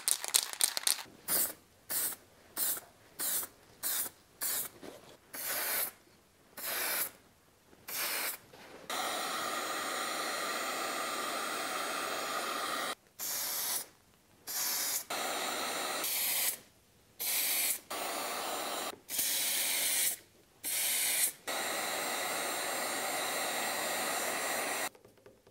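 Aerosol spray paint can: the mixing ball rattles as the can is shaken, then a long run of short hissing spray bursts, some held longer. In between, a heat gun blows steadily for a few seconds at a time.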